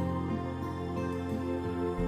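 Soft background music: sustained synthesizer-like chords with a low held bass note that changes near the end.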